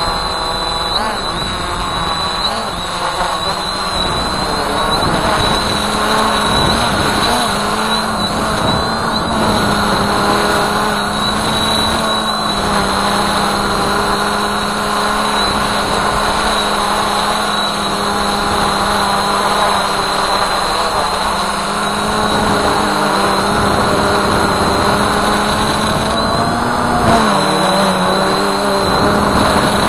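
Quadcopter drone's electric motors and propellers humming steadily in flight, heard close up from the onboard camera, over an uneven low rumble. The pitch of the hum wavers slightly and dips briefly near the end, then recovers.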